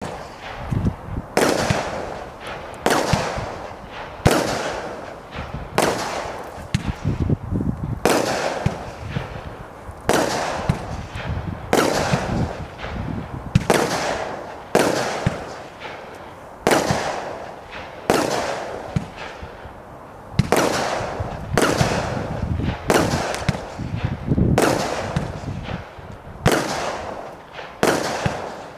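A 25-shot consumer firework barrage (cake) firing shot after shot, one sharp bang about every second or second and a half, each fading off before the next.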